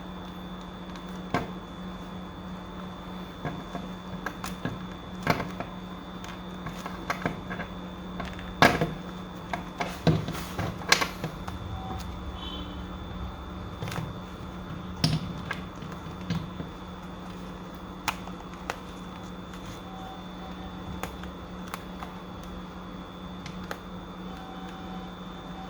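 Scattered small clicks and short scrapes of hands handling and prying apart Marshall Major 4 headphones, thickest about a third of the way in, over a steady low electrical hum.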